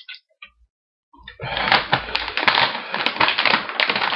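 Plastic Doritos chip bags crinkling and rustling as they are pulled out of a tightly packed cardboard box, starting about a second and a half in with dense, continuous crackling.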